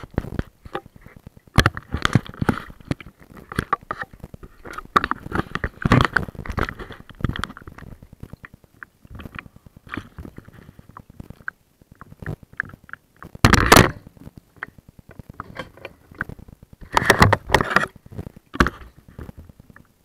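Muffled handling noise from a camera sealed in a ziplock bag: plastic crinkling, crackles and light knocks as it is moved about and set down in a dishwasher tub. The sound comes in irregular spells, with louder crinkling bursts about 13 and 17 seconds in and a quieter stretch around 10 seconds in.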